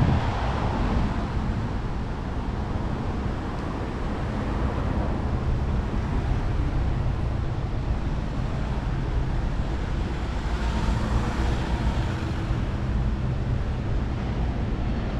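City street traffic noise: a steady rumble of cars and engines, with one vehicle passing louder about eleven seconds in.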